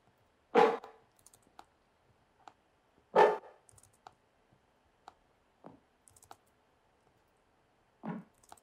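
Short, punchy synth pluck from the Serum soft synth, sounded four times with the last but one fainter, each note cutting off quickly as its envelope decay and release are tightened to lose the tail. Soft clicks in between.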